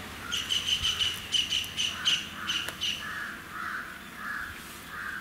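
Birds calling: a quick run of high, sharp chirps about five a second for the first three seconds, overlapped and followed by a slower series of lower, rougher calls about every half second.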